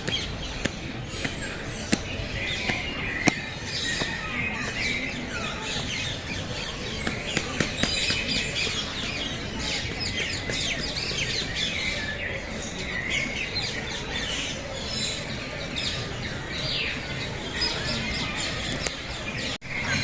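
Many birds chirping and squawking at once, a dense chorus of short overlapping calls.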